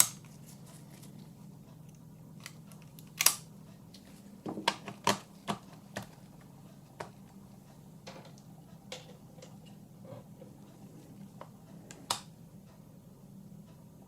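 Scattered small clicks and taps of hands handling a disassembled camera, its connectors and tools on a workbench, a dozen or so at irregular intervals, over a faint steady low hum.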